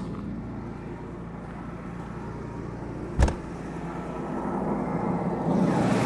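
Jaguar XJ6 Series 3's 4.2-litre straight-six idling steadily and smoothly at about 1100 rpm while still cold. A single sharp thump sounds about three seconds in, and the engine grows louder near the end.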